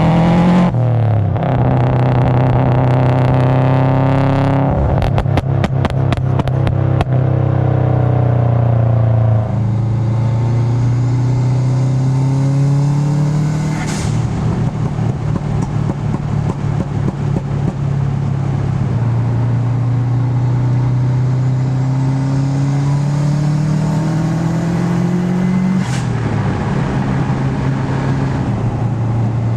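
Turbocharged Subaru WRX flat-four engine pulling hard: its note climbs in pitch, then drops back at the gear changes. Short, sharp blow-off valve releases come at two of the shifts, and a rapid crackle sounds for a couple of seconds early on.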